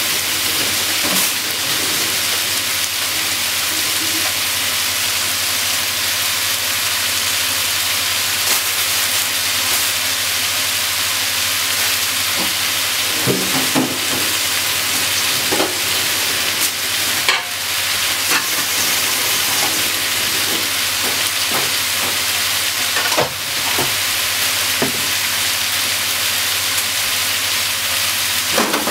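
Pork, carrot, green pepper and onion sizzling steadily in a hot frying pan, with a few short knocks and clatters. Partway through, bean sprouts are piled on.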